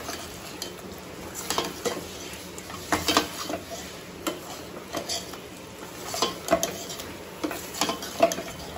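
Steel ladle stirring chicken curry masala in a stainless steel pot, clinking and scraping against the pot's sides and bottom at irregular moments, with the masala sizzling softly as it fries.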